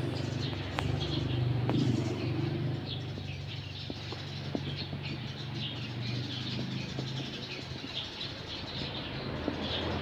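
Eurasian tree sparrows chirping in many quick, short notes, with a few light taps among them, over a steady low hum.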